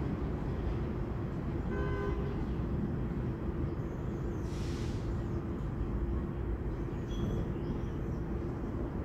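Steady low rumble of city traffic, with a short horn toot about two seconds in and a brief hiss near five seconds.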